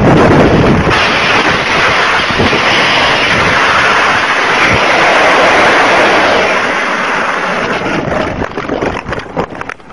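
A crashed Suzuki sport motorcycle sliding on its side along the road at speed: a loud rushing scrape mixed with wind on the microphone. The low engine sound drops out about a second in, and the noise fades as the bike slows, with a few knocks near the end.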